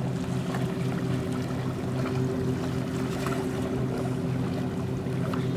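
Boat engine running steadily at low revs, a low pulsing hum, heard across a harbour.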